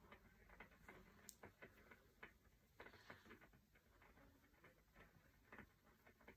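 Near silence: room tone with faint, irregular small ticks and clicks.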